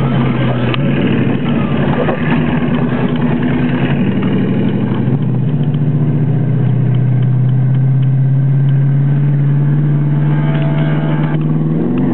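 1973 Plymouth Satellite's engine running hard, heard from inside the cabin. It holds a steady pitch that shifts once about five seconds in and starts to climb again at the very end.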